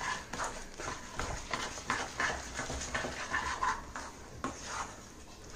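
A spatula stirring roasted chana dal through thick, sticky jaggery syrup in a pan, with irregular scraping and clicking as the coated lentils are pushed around the pan.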